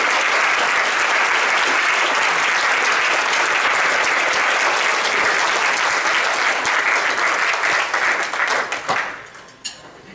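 Audience applauding steadily, dying away about nine seconds in.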